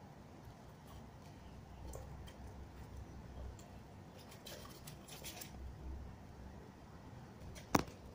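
Faint, scattered scratching and rustling of a small furry pet moving about on the fabric lining of a storage basket, with one sharp click near the end.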